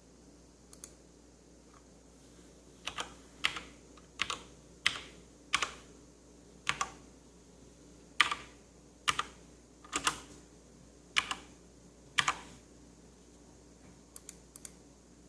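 Corsair Strafe mechanical keyboard with Cherry MX Brown switches, keys pressed one at a time rather than typed in a run. Each stroke is a sharp clack, often doubled, coming about once a second for most of the stretch, with a few lighter taps near the start and the end.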